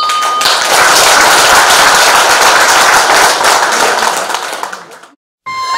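A ceremonial bell, just struck with a wooden mallet, rings on briefly. Then the audience applauds for about four seconds, the applause fading out near the end.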